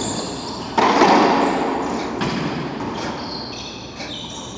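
Racquetball rally in an enclosed court. A loud crack of the ball struck hard comes about a second in and rings on through the court, then two lighter ball strikes, with short high sneaker squeaks on the hardwood floor.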